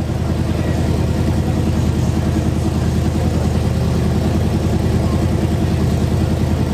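A loud car engine idling steadily at an even, unchanging pitch.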